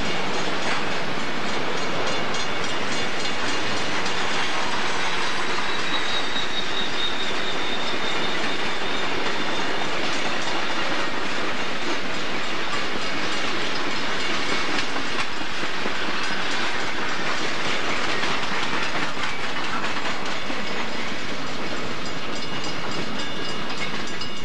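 Freight cars of a Union Pacific mixed freight train rolling past at steady speed, their wheels running on the rails with a steady rolling noise.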